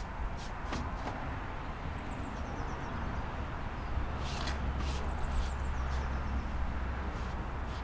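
Outdoor background: a steady low rumble with faint bird chirps, and a few short sharp sounds, two of them close together about four and a half seconds in.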